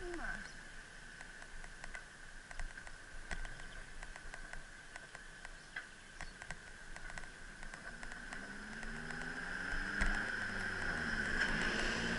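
Light, irregular ticking and rattling as the bicycle rolls along, over a steady high whine. From about eight seconds in, a motor vehicle's engine comes closer and grows louder, its pitch rising and falling.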